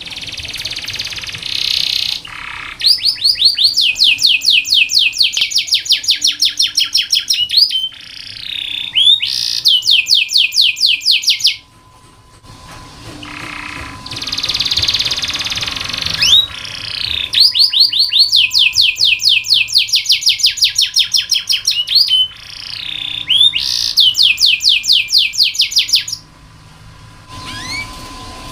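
Domestic canary singing: long rolling trills of rapidly repeated high notes, about eight a second, each a quick downward sweep. The trills alternate with harsher, buzzy phrases near the start and in the middle.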